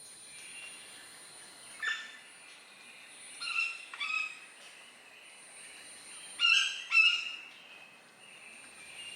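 Greater yellownape woodpecker calling: one short call about two seconds in, then two pairs of short clear calls, the last pair the loudest. A steady high insect whine sits underneath.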